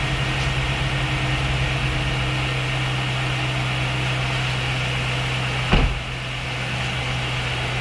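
LS1 5.7-litre V8 idling steadily and smoothly, running again now that the failed fuel pump has been replaced. A single brief thump about six seconds in.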